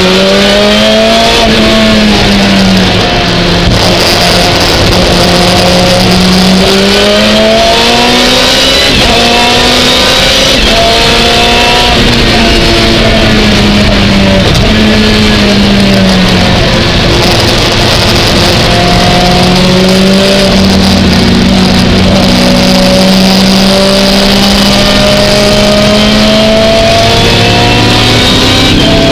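Lotus Exige GT3 race car's engine heard from inside the cockpit, loud, its pitch climbing under acceleration and dropping back at gearshifts and lifts for corners, over a steady hiss of spray from the wet track.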